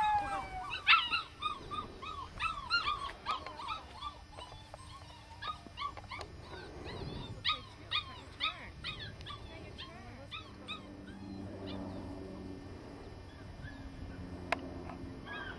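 Seven-week-old Australian Shepherd puppies yipping and whimpering: a run of short, high-pitched cries, several a second, that thin out after about ten seconds.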